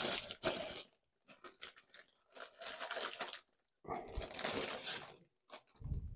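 Clear plastic bag crinkling and rustling as it is handled and pulled off a mobile radio, in several bursts with short pauses between them.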